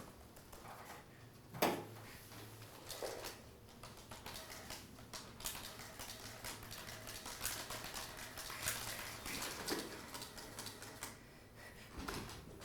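Light, irregular clicking and tapping in a small room: a few separate knocks in the first three seconds, then a fast, dense run of small clicks through the middle that thins out near the end.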